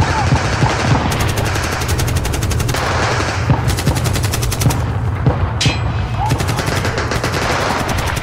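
Automatic gunfire in rapid, evenly spaced bursts with short breaks between them, over a steady low rumble.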